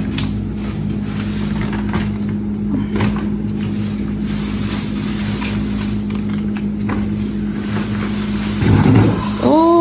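Steady mechanical hum with a low constant pitch, with scattered clicks and knocks of groceries being handled. Near the end, a short rising pitched call.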